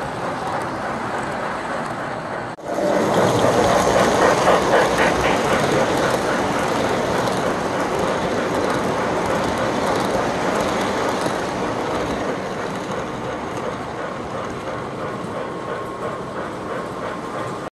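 Lionel O-gauge model train running on the layout track: a steady rolling clatter of metal wheels over the rails, with fine rapid ticking and a brief drop-out about two and a half seconds in.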